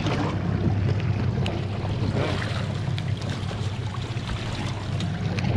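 Boat engine idling steadily, a low even hum, under wind on the microphone and the wash of the sea, with a few faint ticks.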